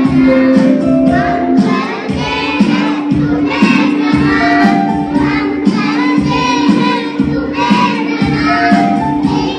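A group of young children singing together over instrumental backing music.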